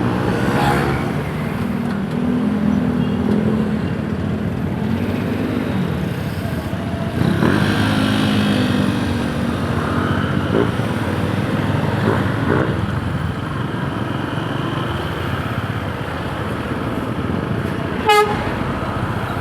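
Yamaha YTX 125 cafe racer's single-cylinder four-stroke engine running on the move, its pitch rising and falling with the throttle and gear changes. A short horn toot near the end.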